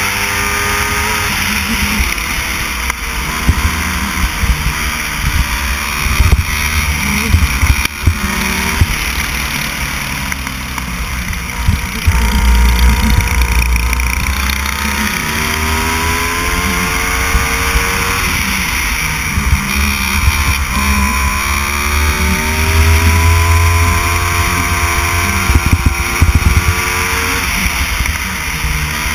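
Racing go-kart engine heard on board, its pitch climbing and falling again and again as it is accelerated and backed off through the turns. Wind rumbles unevenly on the microphone underneath.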